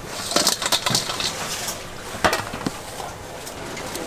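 Cooking utensils clattering and tapping in quick succession, then one sharp knock a little over two seconds in.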